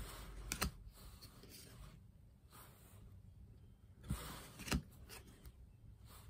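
Trading cards being handled: a few quiet clicks and taps and brief soft rustles as the cards are moved and held up by hand.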